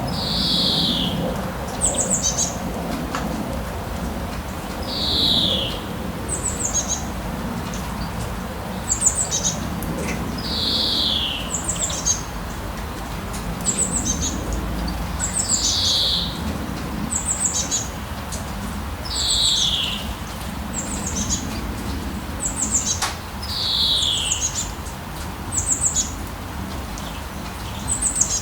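Songbirds calling over a steady hiss of rain: one bird repeats a downward-slurred call about every five seconds, and another gives short, high chirping phrases in between. A low rumble swells and fades underneath.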